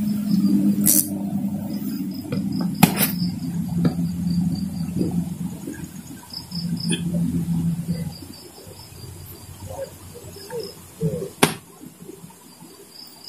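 Crickets chirping in a steady pulsing trill. Under it a low voice murmurs continuously for the first eight seconds, and a few sharp clicks come through, the loudest near the end.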